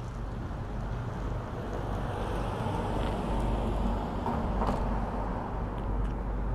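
A car driving past over a railroad grade crossing, its tyre and road noise swelling and peaking about two-thirds of the way in, with a short sharp clack as it goes over the rails. A steady low rumble lies underneath.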